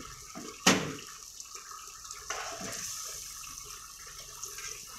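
Chicken and tomato gravy sizzling in a black iron karahi on a gas burner, with a steady hiss. A metal ladle strikes the pan once, sharply, under a second in. From about halfway through, stirring and scraping with the ladle makes the noise a little rougher.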